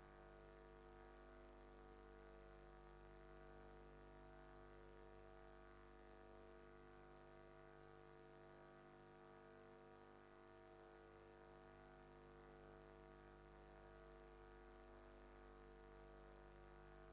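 Near silence: a faint steady hum with a thin high whine.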